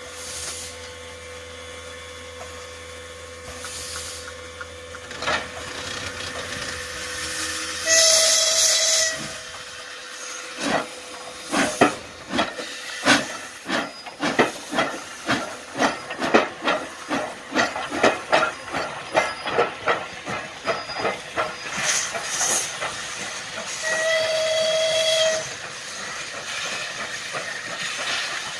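Soviet class L (Л-2331) 2-10-0 steam locomotive hissing steam, then sounding its steam whistle in a blast of about a second and a half. About ten seconds in it moves off, its exhaust chuffs quickening from under two to about three a second as it gathers speed. A second whistle blast comes near the end as the chuffs fade.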